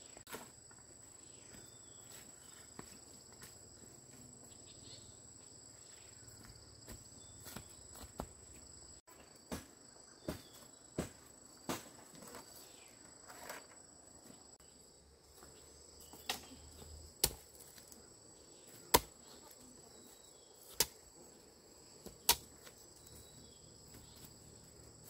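Steady high-pitched insect drone, with a series of sharp knocks at irregular intervals, most of them from about ten seconds in.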